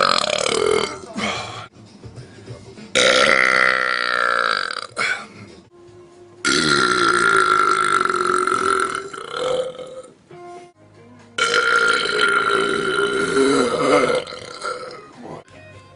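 A man belching: four long, drawn-out burps of two to three and a half seconds each, with short gaps between them. The second one falls in pitch. The belches come from drinking carbonated malt liquor.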